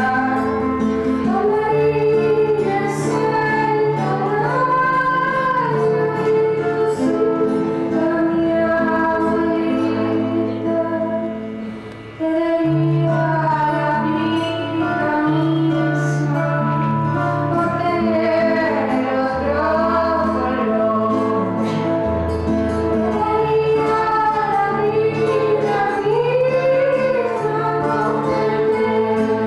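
Live song: a woman singing with guitar accompaniment over held low bass notes. The music dips briefly about twelve seconds in, then carries on.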